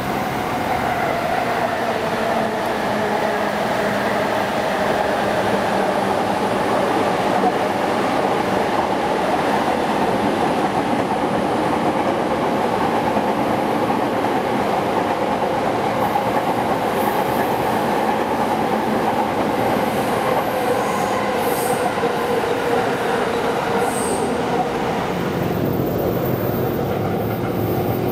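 Electric multiple-unit commuter train running past on a curved track: a steady rumble of wheels on rail, with a hum that slowly drops in pitch. A few brief, high wheel squeals come in the second half.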